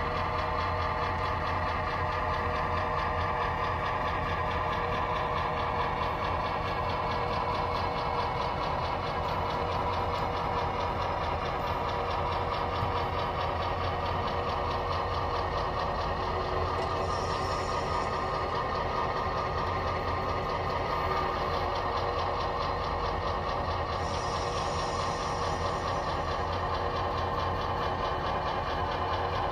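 Model diesel locomotive's sound decoder playing a steady diesel engine sound through its small speaker as the engine slowly shoves a boxcar, with two brief faint hisses about halfway through and near the end.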